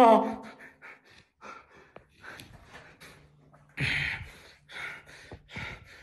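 A man's startled, breathy cry, sudden and falling in pitch, then quick short breaths; a louder burst of breath about four seconds in.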